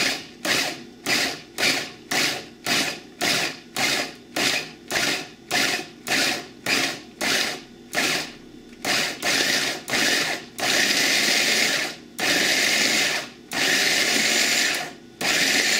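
Small electric food processor pulsing, its blade chopping raw cauliflower florets into rice-sized pieces: short bursts about twice a second, then, from about nine seconds in, longer runs of a second or so each.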